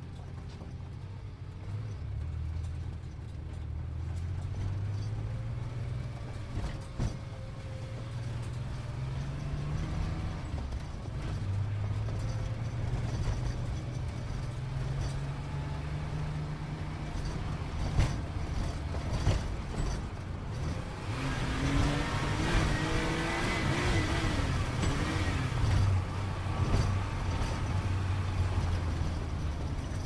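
Sports car engine running while driving. Its pitch climbs, drops back about ten seconds in, then climbs again, and road and tyre noise swells past the middle. A few sharp knocks cut through.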